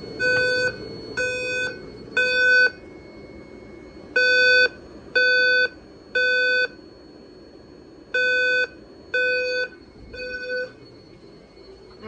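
Simplex TrueAlert fire alarm speaker strobe sounding a low alert tone in the temporal-three evacuation pattern. There are three half-second tones a second apart, then a pause, and the set comes three times.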